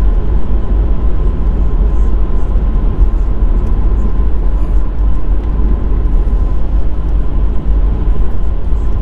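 Steady low road and engine rumble heard inside the cabin of a VW Caddy driving at speed, with a faint steady high tone running under it.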